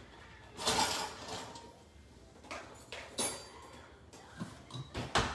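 Light kitchenware sounds while a portion of fried rice is plated: a short scrape about a second in, then a few scattered light knocks and clicks of utensil and dish.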